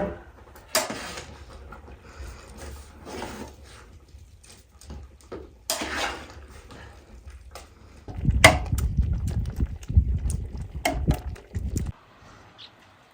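Scattered knocks and clatter of pots and utensils, with short rustling bursts. From about eight seconds in there are a few seconds of dense low rumble mixed with knocks.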